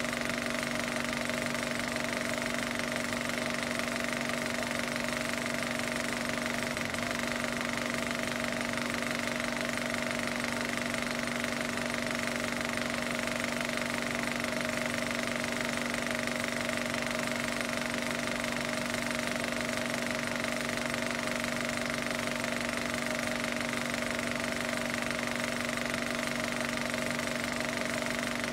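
A steady, unchanging mechanical running noise with a constant hum that holds the same pitch throughout.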